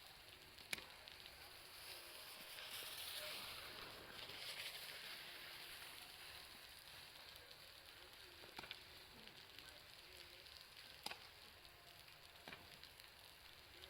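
Meltwater dripping from a building's roof, a faint scattered pattering that sounds like a crackling fire. A few sharper single taps stand out, one near the start and three in the last few seconds.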